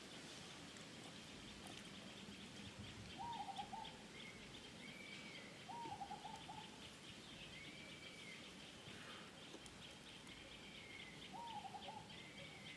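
Faint bird calls: a short wavering call, repeated three times a few seconds apart, over a higher arched note that comes every two to three seconds, with a steady fast insect-like ticking behind.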